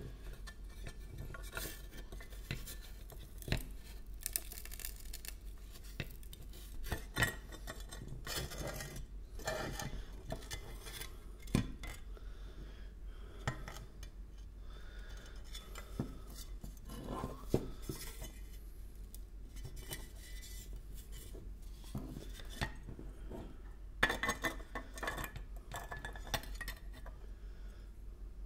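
Glassy, vitrified chunks of concrete heated to 1260 °C being handled on a thin metal plate: irregular clinks, taps and scrapes as the brittle pieces knock against each other and the plate, with a few sharper knocks, over a steady low hum.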